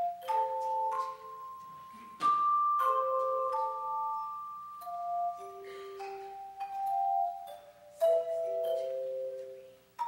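Children's handbell choir ringing a slow tune: single handbell notes and two- or three-note chords, each struck with a sharp attack and left to ring on, some for a few seconds.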